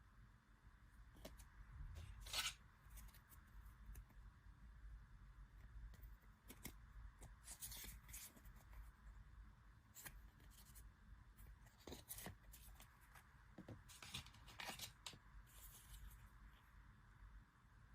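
Faint, irregular rustles and light clicks of packaging and cards being handled, a dozen or so scattered short sounds over a low room hum.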